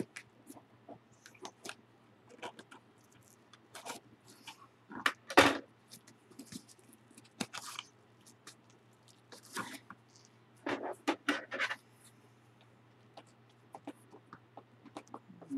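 Hands working at a tape-covered cardboard package: scattered rustles, crinkles and scrapes, the loudest about five seconds in and a busier stretch around ten to eleven seconds, over a faint steady low hum.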